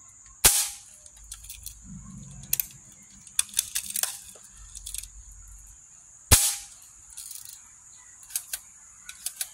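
Daisy Buffalo Bill BB gun firing two sharp shots about six seconds apart, with smaller clicks and rattles of the gun being handled between and after them.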